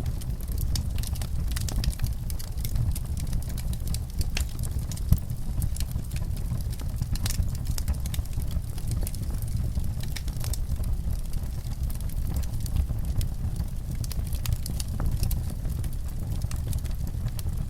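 Wood fire crackling in a fireplace: irregular sharp pops and snaps over a steady low rumble, with one louder pop about five seconds in.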